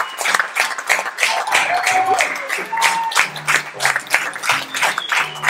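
Audience applause: many people clapping steadily and densely, with music playing underneath from about two seconds in.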